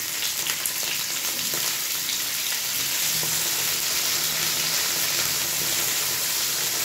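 Moringa drumstick pieces sizzling steadily as they fry in hot oil in a nonstick pan, with faint clicks of a spatula stirring them.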